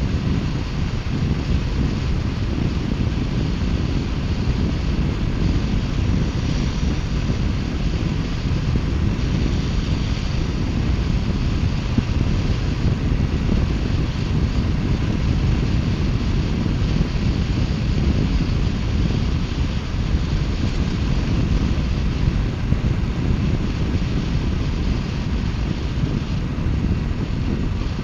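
2018 Triumph Bonneville T120's 1200 cc parallel-twin running steadily at cruising speed, mixed with wind rushing over the microphone.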